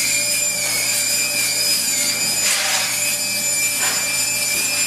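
Steady hiss of a patina torch heating a bronze casting, with a few short louder hisses about halfway through and near the end.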